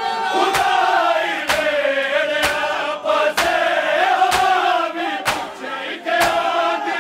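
Large crowd of men chanting a mourning noha in unison while beating their chests together (matam), one sharp collective slap about every second.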